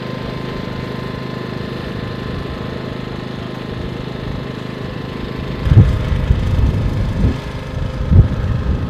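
A vehicle engine idling with a steady low hum. From a little past halfway, louder uneven low rumbling comes and goes in several swells.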